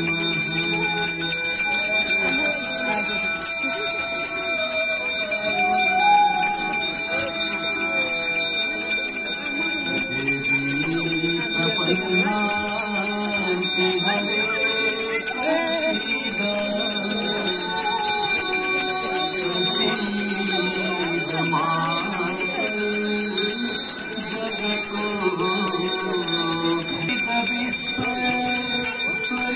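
Hand bells ringing continuously for a Hindu aarti, over a slow devotional melody.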